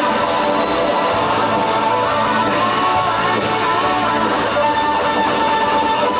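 Live rock band playing an instrumental passage: an electric guitar lead with bent notes over the drums, settling into one long held note about two thirds of the way through.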